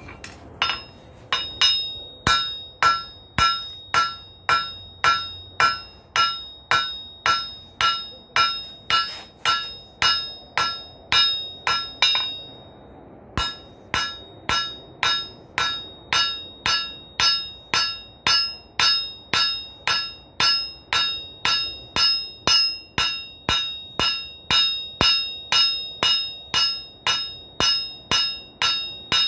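Hand hammer striking hot 3/8-inch rebar on a steel anvil at a steady two blows or so a second, each blow ringing with a clear metallic tone. The blows stop for about a second midway, then carry on at the same pace.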